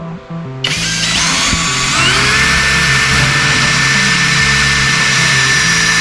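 Worx WU369 electric drill starting about half a second in, its whine rising for a second and then running steadily as it drives a screw into wooden boards.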